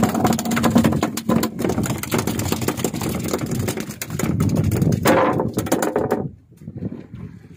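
A freshly landed small tuna beating its tail against wooden deck boards, a fast clattering drumming that stops suddenly about six seconds in.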